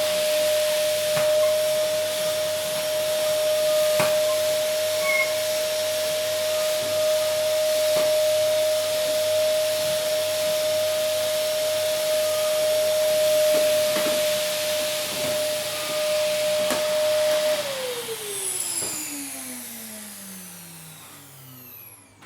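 Vacuum cleaner running, a steady rushing hiss with a constant motor whine. About 17 seconds in it is switched off: the whine falls in pitch and the hiss fades as the motor spins down.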